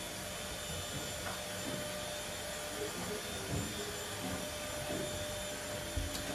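Steady room noise: an even hiss with a faint constant tone through it, and a few faint soft taps.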